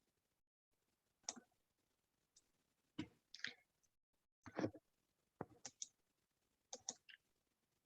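Near silence broken by about eight faint, short clicks and taps at irregular intervals.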